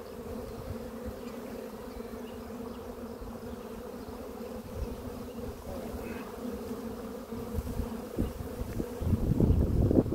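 Honeybees buzzing steadily around an opened nucleus hive box, a low hum with an overtone. Near the end a louder low rumble rises under the buzzing.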